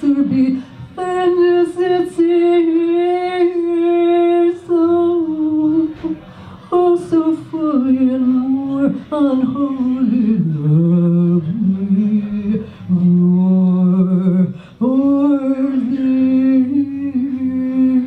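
A woman singing unaccompanied into a microphone, holding long notes with a slight waver. The pitch slides down through the middle and settles on a steady held note near the end.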